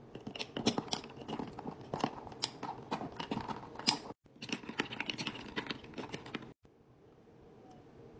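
Ice cubes clinking and rattling against a drinking glass as a straw stirs an iced matcha latte: a quick, irregular run of sharp clinks that breaks off briefly about four seconds in and stops at about six and a half seconds.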